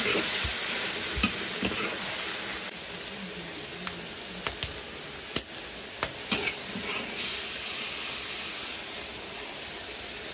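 Braised eggplant in sauce sizzling and steaming in a large wok, a steady hiss, with scattered clicks and scrapes of a metal spatula against the wok and bowl as the dish is scooped out.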